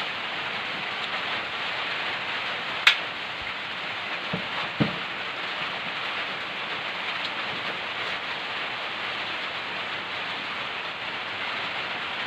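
Steady hiss of rain, with one sharp click about three seconds in and two soft knocks a little later.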